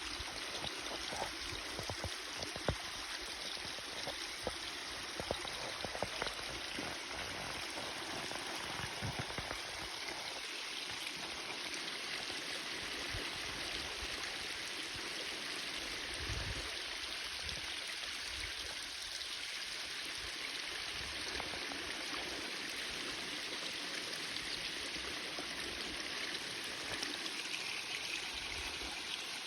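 Water rushing steadily over a small cascade, a continuous even noise, with a few short knocks in the first several seconds.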